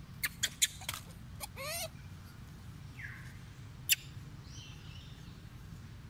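High animal squeaks and clicks: a few sharp clicks in the first second, a short wavering squeal just before two seconds, and another sharp click about four seconds in, over a steady low background rumble.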